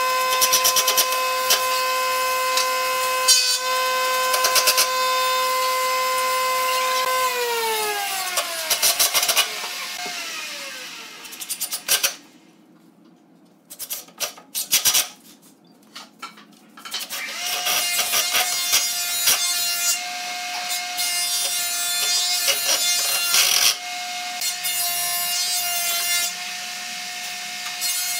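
Cordless impact driver driving screws into pine boards: a steady motor whine over a fast hammering clatter that winds down in pitch about seven seconds in. After a quieter stretch of scattered clicks and knocks, it runs again at a slightly higher pitch for the last ten seconds.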